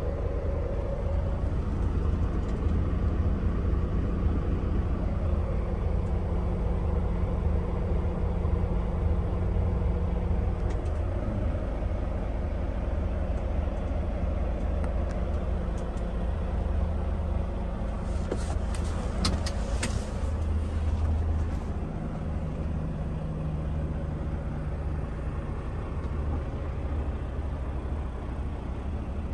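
Volvo D13 inline-six diesel of a semi truck idling steadily, its note shifting slightly a couple of times. A few brief clicks and a short hiss come about two-thirds of the way through.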